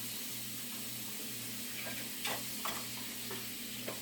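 Steady kitchen hiss with a low hum pulsing on and off a little under twice a second, and a few light clicks and knocks of things being handled in the second half.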